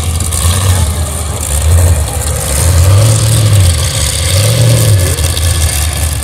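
An engine running loud and low, revving up and back down in three swells.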